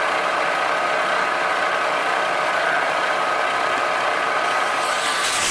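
Vertical milling machine running steadily, with a whine from the spindle drive and gearing. Some hiss joins in near the end.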